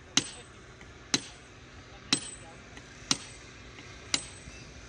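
Sledgehammer striking a wooden-handled hot chisel held on a freshly poured, still-glowing thermite rail weld: five sharp metallic clangs about a second apart as the excess weld metal is chopped off.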